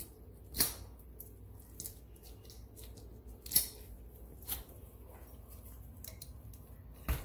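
Scalpel blade cutting through a bass's skin and scales: a few sharp, irregular crisp clicks, the loudest about halfway through.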